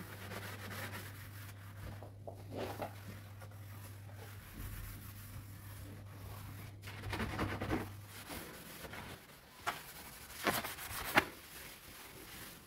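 Items being handled and wiped in a kitchen under-counter cupboard: rubbing and scraping, with a couple of sharp knocks near the end, over a low steady hum that stops about two-thirds of the way through.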